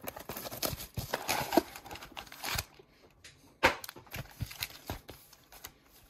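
Trading card packs being taken out of their cardboard box by hand. First there are a couple of seconds of dense crinkling and rustling, then a sharp click and a string of light taps and knocks as the packs are set down.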